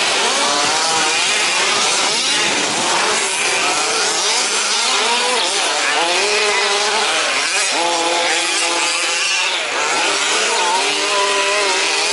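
Several 1/5-scale RC trucks' small two-stroke petrol engines racing together, each revving up and down in overlapping rising and falling whines.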